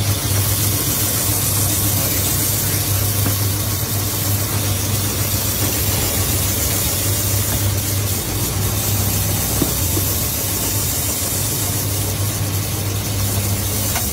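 Steady mechanical hum with a constant hiss over it, and one short knock about ten seconds in.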